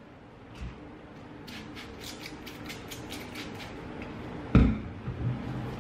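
Trigger spray bottle of water sprayed about eight times in quick succession, short hissing squirts at roughly four a second, wetting hair. Near the end comes one heavy thump, followed by two softer knocks.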